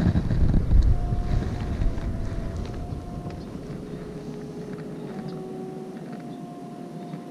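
Wind buffeting the microphone, a low rumble that is strongest in the first few seconds and then falls away. Faint held notes that change pitch every second or so run underneath.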